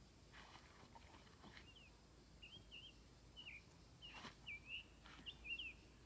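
Faint songbird chirping in short, quick repeated phrases, with a few soft clicks.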